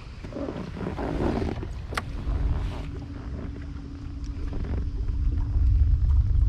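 Wind buffeting the microphone on a fishing boat, a heavy low rumble that grows louder toward the end. A steady low hum comes in about two seconds in, just after a single sharp click.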